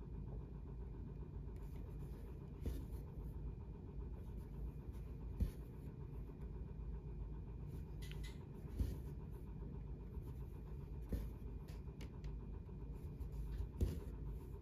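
Hand cross-stitching on 25-count Lugana evenweave fabric: faint scratchy rustles and soft clicks as the needle and thread are drawn through the cloth, a few times over several seconds, above a steady low room hum.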